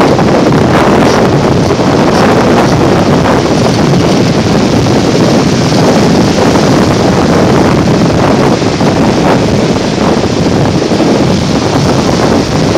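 Loud, steady wind buffeting the microphone over breaking surf.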